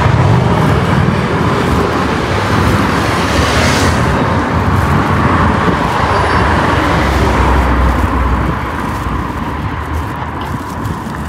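Street traffic with motorcycles and cars passing, a steady engine and tyre rumble that swells as vehicles go by, loudest around the middle.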